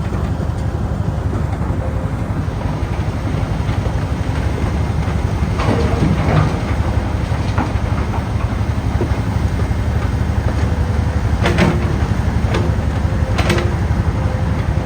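Mobile track-mounted crusher running steadily with a heavy low drone while crushing asphalt, with a few sharp clanks about six, eleven and a half and thirteen and a half seconds in.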